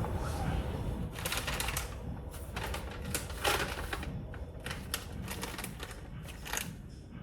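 Quick clusters of light clicks and taps over a low steady rumble.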